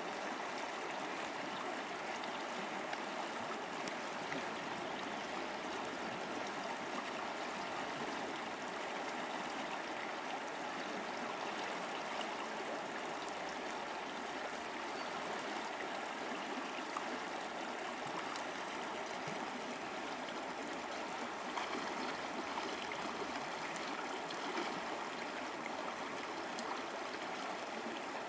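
Steady rushing of a river flowing fast over a shallow, stony riffle.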